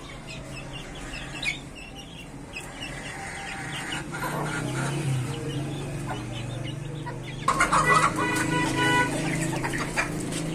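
Chickens clucking and peeping in short high calls, with a louder, drawn-out call about three quarters of the way through.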